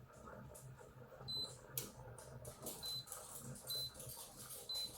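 Control panel of an electric siphon coffee maker giving four short, high beeps as its buttons are pressed, with a few soft clicks and taps in between.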